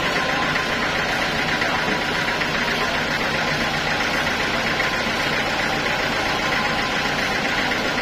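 Band sawmill running steadily, a continuous machine sound with a fast, even pulse.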